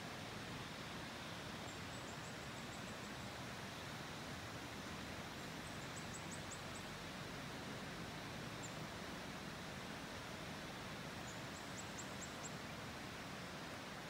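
Steady, even outdoor ambience with a soft hiss. Over it come faint runs of quick, very high-pitched chirps, three short runs and one single chirp.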